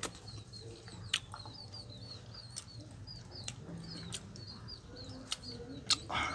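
Small birds chirping: a run of short, high chirps, several a second, with a few sharp clicks in between and a louder rustle-like burst near the end.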